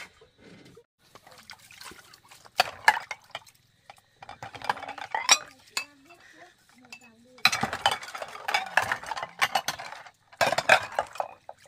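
Bowls being washed by hand in a plastic basin of water: repeated clinks and knocks of bowl on bowl and against the basin, with scrubbing and water sloshing. The sloshing is busiest in a stretch a little past halfway and again near the end.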